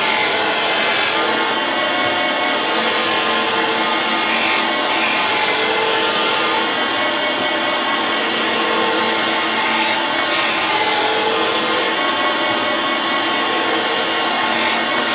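A surface grinder's wheel grinding a wood chipper blade, a steady whirring hiss. The sound changes in a cycle about every five seconds as the table traverses back and forth. These are light passes taken to clean up the blade's face.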